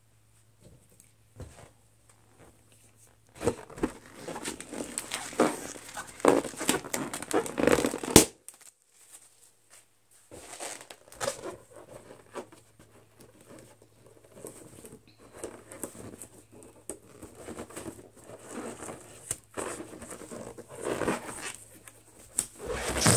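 Fingernails scratching and picking at a stretched latex balloon in irregular bouts, with a single sharp bang about eight seconds in as a balloon bursts.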